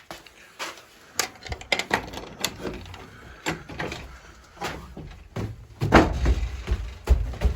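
A barn door being opened: a run of irregular knocks, clunks and scrapes, with a heavier low rumble from about five and a half seconds in.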